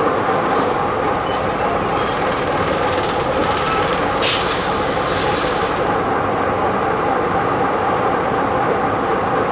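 Interior running noise of a Bristol VR double-decker bus: a steady engine drone, with two short hisses about four and five seconds in.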